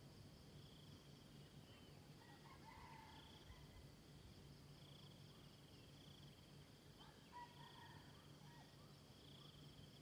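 Faint, distant rooster crowing twice, about two and a half and seven seconds in, over steady high-pitched trilling insects and a low hum.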